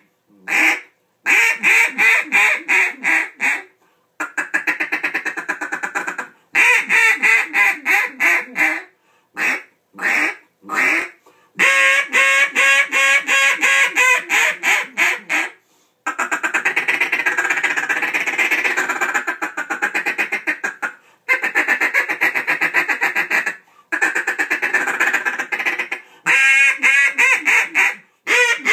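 Buck Gardner Double Nasty 2 double-reed duck call blown by mouth, giving mallard-style quacks: single quacks and runs of rapid quacks separated by short breaths, with a long, fast run of dense notes about halfway through.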